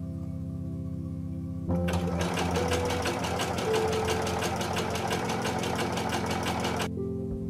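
Sewing machine stitching fabric, a rapid, even run of needle strokes that starts about two seconds in and stops shortly before the end, over soft background music.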